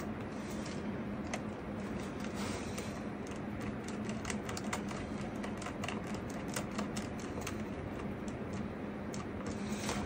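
Precision screwdriver turning a small screw into a laptop's metal bottom panel: irregular light ticks and clicks of the bit working in the screw, thickest in the middle, over a steady low hum.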